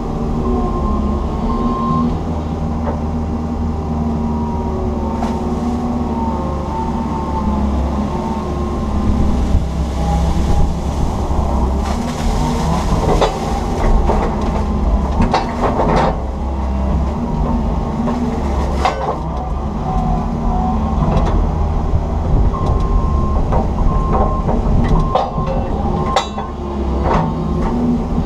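Komatsu PC160 hydraulic excavator heard from inside its cab: the diesel engine running steadily under load, with a high whine coming and going as the hydraulics work. Scattered knocks and clanks come through, mostly in the middle and near the end, as the bucket digs and dumps wet weeds and silt.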